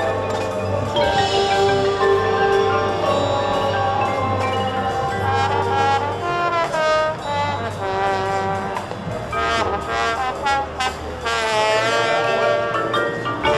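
High school marching band playing, with brass over the front ensemble's mallet percussion.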